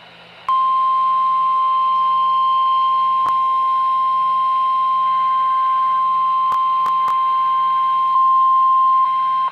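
NOAA Weather Radio warning alarm tone: a single steady high beep of about 1050 Hz that starts about half a second in and holds for about nine seconds. It signals that a weather warning broadcast, here a severe thunderstorm warning, is about to follow.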